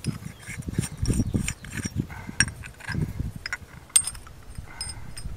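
Brass and PVC pipe fittings handled and fitted together by hand: irregular small clicks and clinks, with one sharp click about four seconds in.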